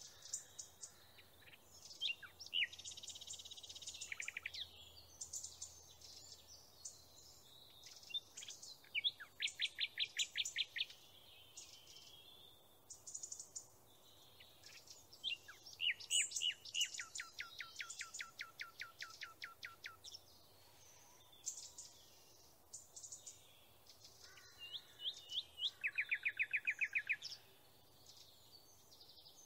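A songbird singing: high chirps broken by four long, rapid trills of evenly repeated notes.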